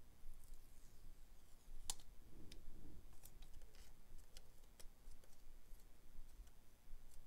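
Scattered light plastic clicks and ticks from a DJI Osmo Action camera being handled and picked at with the fingers, with one sharper click about two seconds in.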